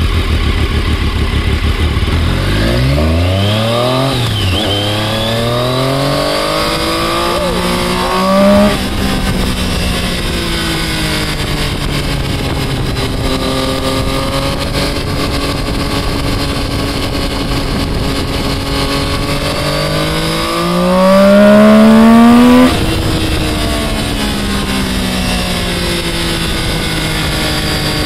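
Triumph motorcycle engine heard from the saddle, revving up through the gears: its pitch climbs, drops at each shift and climbs again. The loudest, highest pull comes past the twenty-second mark and cuts off sharply as the throttle closes, after which the engine runs on at a lower, slowly falling pitch.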